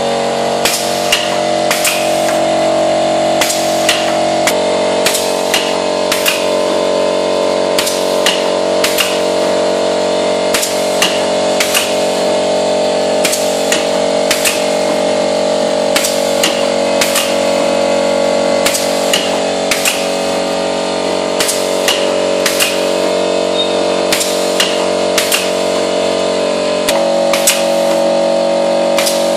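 Semi-automatic one-colour turntable screen printing machine running: a steady mechanical hum whose tone shifts about four seconds in and again near the end, with sharp clacks repeating about once or twice a second as the mechanism cycles.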